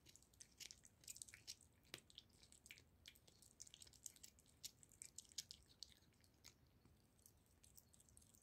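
Tabby cat chewing and gnawing on a raw goose neck close to the microphone: a quick, irregular run of small clicks and smacks that thins out after about six seconds.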